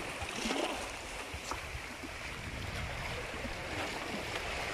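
Steady rushing wash of water, like waves or a current, with a light click about one and a half seconds in.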